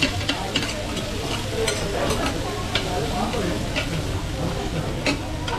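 Chopped cabbage sizzling on a hot iron griddle while metal spatulas scrape and tap the plate, with irregular clicks of steel on iron, as the cabbage is pushed into a ring for monjayaki.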